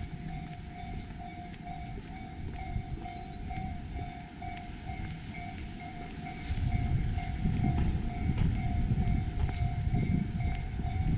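Electric commuter train running, its low rumble growing louder about six and a half seconds in.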